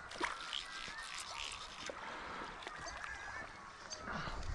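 Hooked rainbow trout splashing and swirling at the surface of shallow river water as it is played on a fly rod, over the faint wash of the river, with birds calling.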